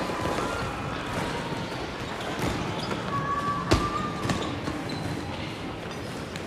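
Gymnasium noise: basketballs bouncing on the gym floor and sneakers squeaking, with one sharper thud about three and a half seconds in.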